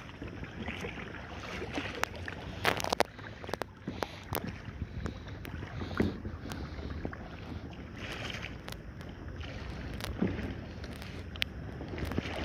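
Paddling on calm water: small splashes, drips and water lapping at the hull, with scattered sharp clicks, over a steady low wind rumble on the microphone.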